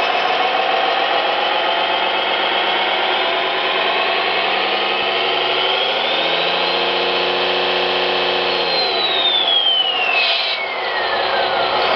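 Simulated engine sound from an SMX RC sound module, played through its small speaker: it runs steadily, revs up about halfway, then drops back down about three seconds later, with a high whine falling in pitch near the end and a short hiss about ten seconds in.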